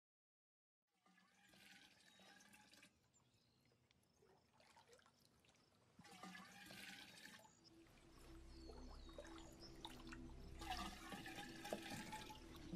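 Faint splashing and trickling of water as a wooden ladle dips into a pool and pours into a clay jar, in three short bursts a few seconds apart. A low steady hum joins partway through.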